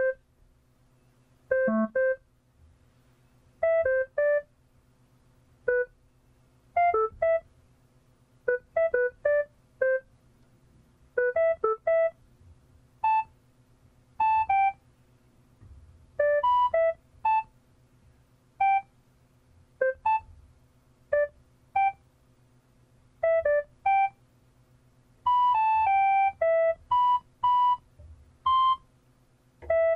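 Sparse electronic music of short, beep-like pitched notes, played singly and in quick clusters of two or three, moving between pitches. The notes sit higher and come more thickly near the end. A faint steady hum runs underneath.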